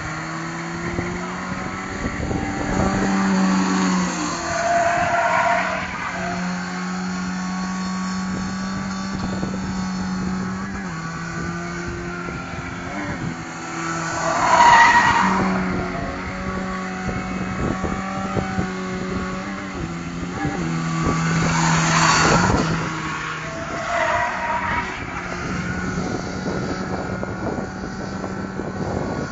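Pickup truck spinning donuts: its engine is held at high, fairly steady revs while the tyres squeal in repeated surges, the loudest about fifteen seconds in.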